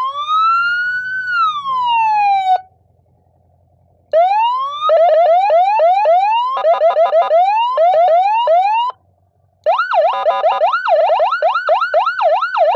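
Electronic emergency-vehicle siren cycling through tones: one long wail that rises and falls, a pause, a run of quick repeated rising yelps, a brief break, then a fast up-and-down warble.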